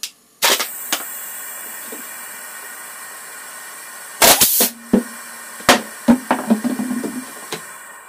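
Homemade vacuum pump built from a refrigerator compressor, running with a steady hiss and hum after it is switched on about half a second in, drawing down a plastic bottle on its hose. Sharp plastic crackles and clicks come over it, loudest about four seconds in, with a few more up to near the end. The running sound then dies away as the pump is switched off.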